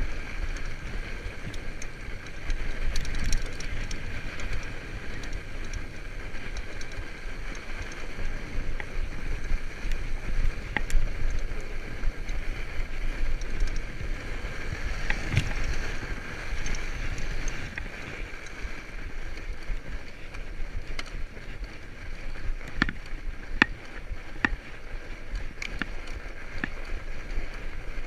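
Fat bike rolling over a packed snow trail: steady tyre and riding noise with a low rumble, and scattered sharp clicks and rattles from the bike, more of them in the last few seconds.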